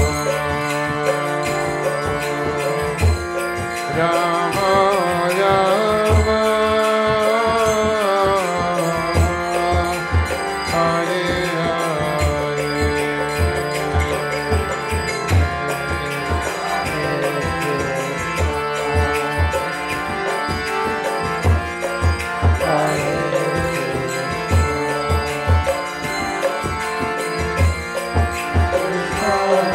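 Kirtan music: voices chanting a melodic line over held harmonium-like tones, with a hand drum beating a quick, steady rhythm of low strokes.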